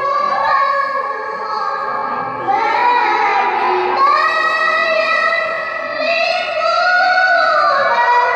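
A girl reciting the Quran in melodic tilawah style into a handheld microphone, holding long high-pitched notes that rise and fall slowly in pitch, with a climb to a higher note about four seconds in and another near the end.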